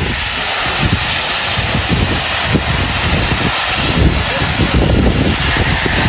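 Steady loud rush of Khandadhar waterfall's water plunging from high above, with wind buffeting the microphone in low rumbling gusts.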